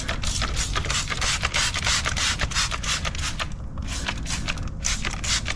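Trigger spray bottle spraying wheel cleaner onto a car wheel in a quick run of squeezes, a short hiss with each pump, several a second, pausing briefly a little past halfway.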